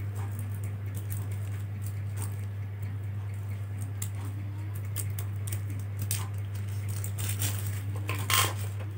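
Light metallic clicks and taps of small screws and a screwdriver being handled against a hard-drive caddy, with a louder click near the end, over a steady low electrical hum.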